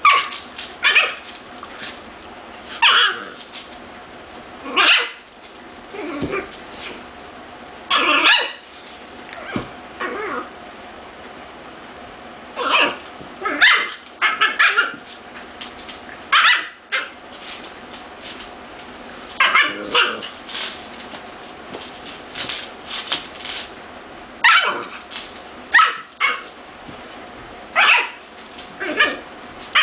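Two pit bulls play-fighting, giving short barks and yips back and forth in irregular bursts every second or two, with a few brief pauses.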